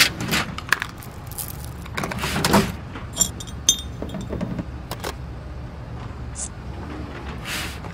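Metal hardware being handled: a parts-cabinet drawer sliding open with clicks, then small metal parts jangling and clattering, with a few ringing metallic clinks around the middle.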